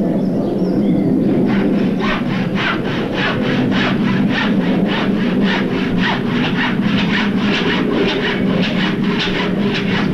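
Handsaw cutting wood in fast, even strokes, about three a second, starting a second or two in and running on, over a steady low hum.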